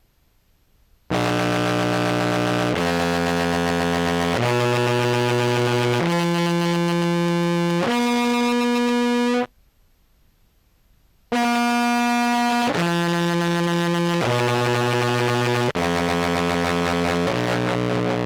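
Contrabass clarinet played through a fuzz pedal: long held notes with a thick, distorted buzz, in two phrases of about five notes each that step from pitch to pitch, with a pause of about two seconds between them.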